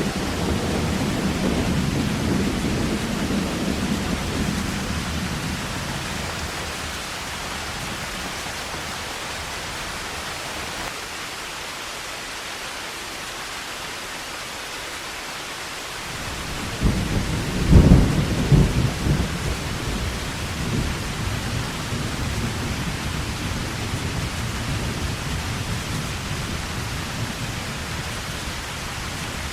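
Heavy rain falling steadily, with thunder. A low rumble dies away over the first few seconds, then a sharp thunderclap comes just past the middle and rolls on in rumbles for a few seconds.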